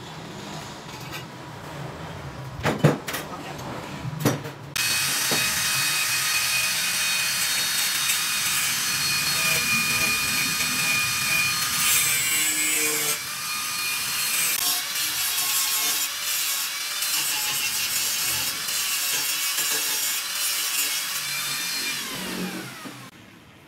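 Hand-held electric angle grinder grinding a stainless steel tube, a steady high-pitched whine from about five seconds in that winds down in pitch near the end. Before it starts, a couple of sharp metal knocks as the tube is handled.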